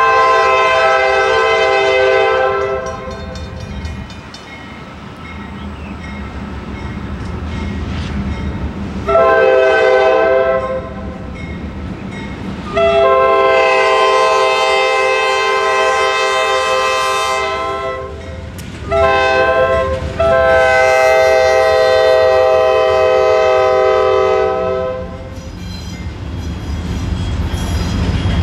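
Air horn of a Norfolk Southern GE C40-8 diesel locomotive leading a freight train, sounding five blasts: long, shorter, long, brief, long. Near the end the rumble of the passing locomotives' diesel engines and the train's wheels builds up.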